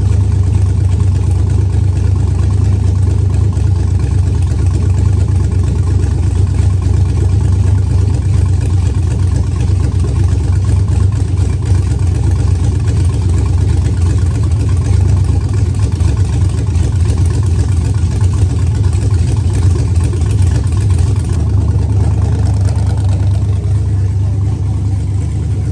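GM 5.3-litre V8 truck engine with a freshly rebuilt top end, running steadily without revving. It gets a little quieter over the last few seconds.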